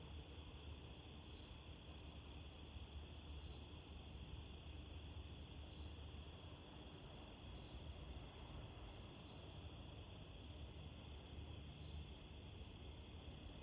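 Night insects chirping faintly and steadily, with high pulses repeating about once a second, over a low rumble of wind.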